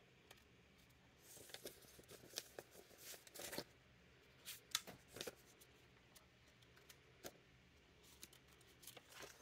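Faint, scattered rustles and flicks of paper banknotes being handled, in near silence.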